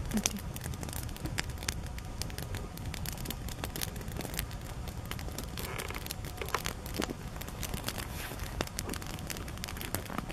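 Low rumble of wind on the microphone with many small irregular crackling clicks scattered throughout.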